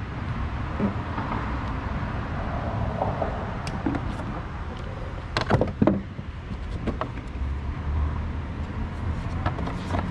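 Hands working in a car's engine bay: scattered sharp plastic clicks and knocks, the loudest a few about halfway through, then more near the end as the plastic engine cover is set back onto the engine, over a steady low rumble.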